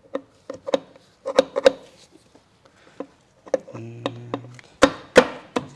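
Irregular metallic clicks and knocks of a dirt bike's water pump cover tapping against the engine case as it is pushed and worked onto its shaft and dowel pins, with two sharper knocks near the end. It will not seat because the water pump gear inside has turned slightly out of line.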